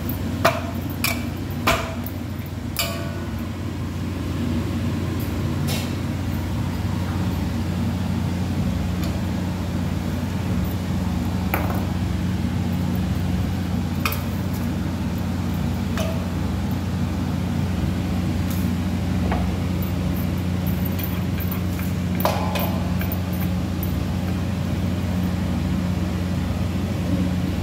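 A steady low mechanical hum, with sharp metallic clinks and taps of hands against a steel plate while dough is kneaded. There is a quick run of clinks in the first three seconds, then single taps now and then.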